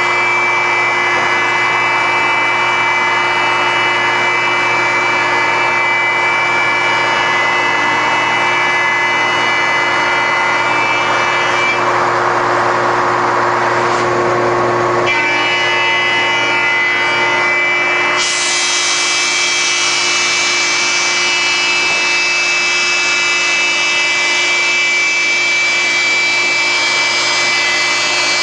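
Industrial wide belt sander running, its motors giving a steady hum and whine under the rasping hiss of abrasive belts sanding a wood panel as it feeds through. The grinding changes character a few times and turns brighter about two-thirds of the way through.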